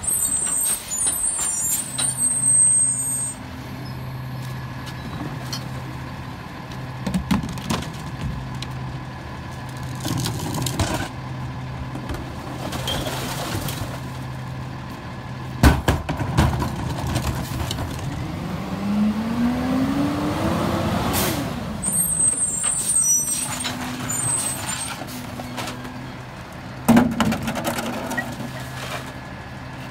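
Diesel engine of a Freightliner M2106 rear-loader garbage truck with a Heil Durapack 5000 body running with a steady hum, with air brake hisses near the start and again about three-quarters through. Recycling bins being tipped into the hopper knock loudly against it about halfway and again near the end, and the engine revs up in a rising whine a little past the middle.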